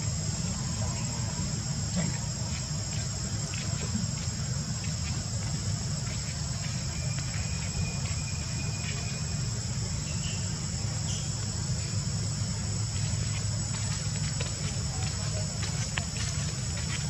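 Steady high-pitched drone of insects, with a steady low rumble underneath and scattered faint ticks.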